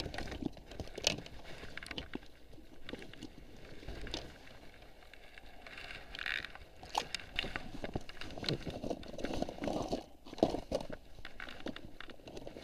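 Handling noise in a small inflatable raft: scattered clicks, knocks and rustling of hands, clothing and gear close to the microphone, with no single steady source.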